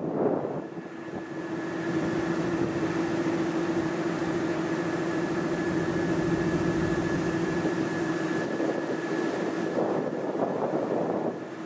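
SM42 diesel-electric locomotive running under power as it pulls out with a passenger train: a steady engine hum with a fainter, higher steady whine over it.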